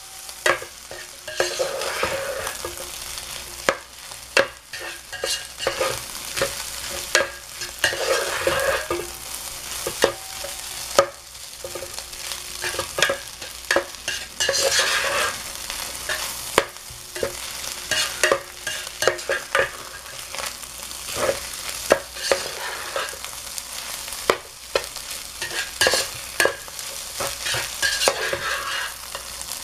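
Fried rice being stirred in an electric skillet with a spatula over a steady sizzle. The spatula scrapes and knocks against the pan in frequent, irregular clicks.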